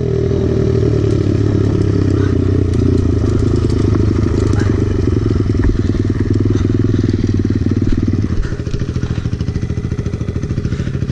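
Small pit bike engine, heard close from the rider's own bike, running steadily under throttle along a dirt trail. About eight seconds in the throttle is eased off, and the engine runs quieter as the bike slows to a stop.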